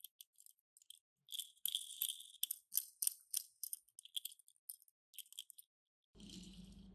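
Light clicking and rustling from small toy cars and their plastic packaging being handled, with a denser crinkly stretch about a second in. A low steady hum comes in near the end.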